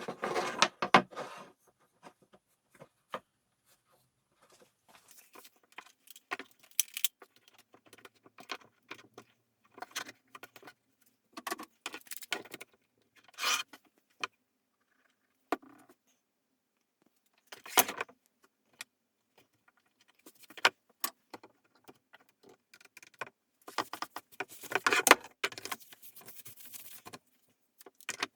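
Small metal pieces clinking and rattling as they are handled, with scattered taps and knocks. The loudest clusters come right at the start and again a few seconds before the end.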